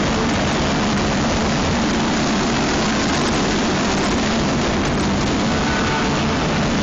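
Dense fireworks barrage: many bursts and crackling fountains running together into a steady, loud noise with no separate bangs standing out.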